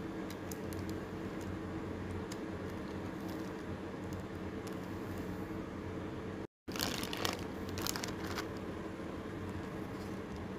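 Plastic cling wrap crinkling and light clicks of a plastic spatula as soft dough discs are lifted and set down on a wrapped cutting board, over a steady low hum. After a brief dropout, a louder run of crinkling and scraping lasts about two seconds.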